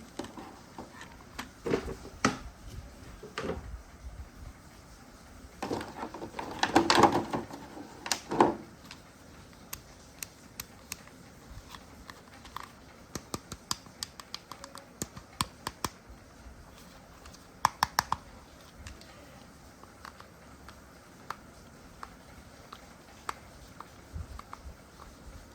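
Irregular light clicks and taps, with a louder, noisier clatter about six to eight and a half seconds in.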